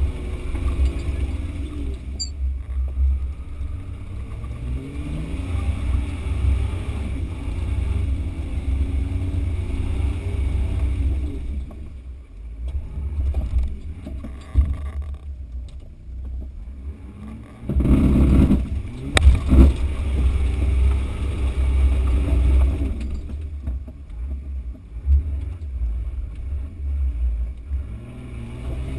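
Off-road 4x4 engine running under load, revving up and down as the vehicle crawls up a steep dirt slope, over a heavy low rumble. About 19 seconds in there is a louder surge with a single sharp knock.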